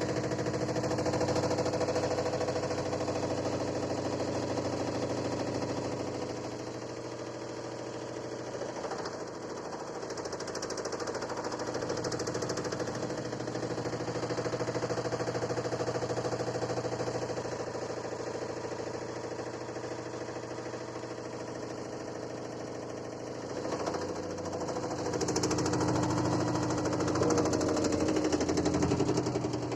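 LG F80B8LD6 direct-drive washing machine spinning: a steady motor hum with a fast, rattling knock that swells and eases a few times. The knocking comes only during spin on a nearly new machine, and the owner likens it to a hose or wire knocking against the cabinet wall, with the drain hose vibrating noticeably.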